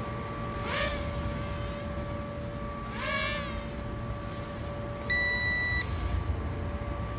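Sharper Image DX-2 toy quadcopter's motors whining steadily in flight, the pitch swelling up twice as it is throttled. A single electronic beep lasting under a second sounds about five seconds in.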